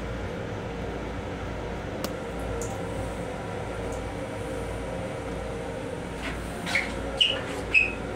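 Steady running rumble of a Long Island Rail Road M7 electric railcar, with a faint steady hum. Near the end come three sharp metallic clunks with a brief ring as the restroom door is shut and latched.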